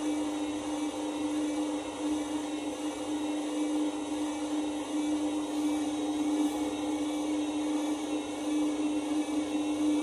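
Candy front-loading washing machine's drum motor running with a steady whine as the drum tumbles wet, sudsy laundry, cutting off suddenly at the very end.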